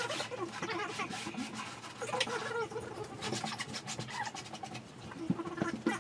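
Chipboard furniture panels being handled during cabinet assembly: scraping and rubbing with scattered knocks, with indistinct voices underneath.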